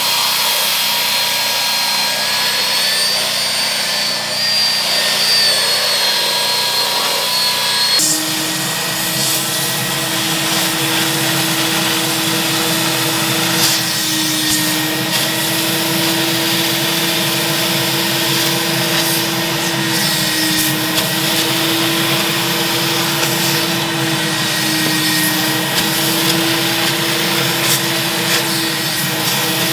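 A cordless drill spins a scrub brush on a soaped cloth car seat with a steady high whine. About eight seconds in, this cuts to a carpet extractor running steadily, its motor humming with a rushing airflow as the upholstery wand is drawn over the wet seat.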